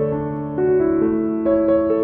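Background keyboard music: a gentle melody of piano-like notes, a new one struck every half second or so and left ringing over the others.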